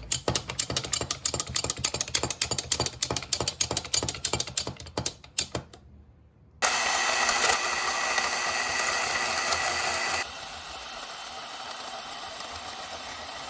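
Rapid metallic ratchet clicking of an old Walker Badger 117 car jack's mechanism as it is worked, about seven clicks a second for some five seconds. After a short pause comes a steady hiss of lubricant being sprayed onto the jack's joints, which gets quieter part way through.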